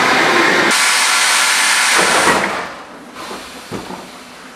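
Budapest M1 metro train at a station platform: a loud rushing hiss that cuts off after about two and a half seconds. A much quieter rumble of the car follows.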